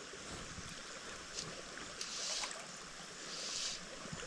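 Creek water swishing in soft, regular surges about every second and a half over a steady rush of flowing water: legs in waders pushing through the stream.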